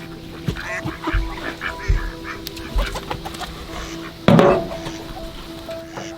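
Domestic fowl calling in a farmyard, with one loud call about four seconds in, and a few soft low thumps.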